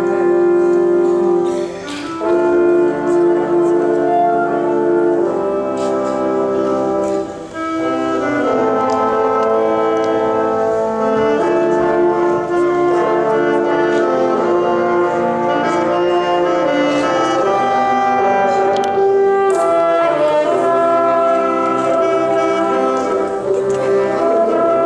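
A small wind ensemble of flute, clarinet, saxophone, French horn and trombone playing a piece together in sustained, melodic phrases, with two brief breaks between phrases about two and seven seconds in.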